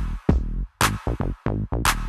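Electronic dance music with a heavy drum-machine beat and bass.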